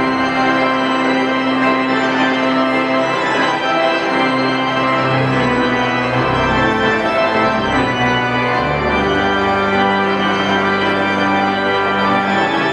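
Schantz pipe organ playing full sustained chords, with the low bass notes changing every second or two.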